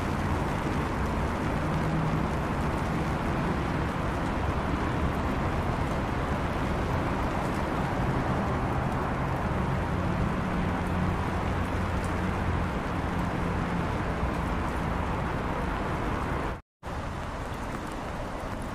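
A motor vehicle's engine running with a low hum over steady rain noise. Near the end the sound breaks off for an instant and comes back quieter, mostly the hiss of rain.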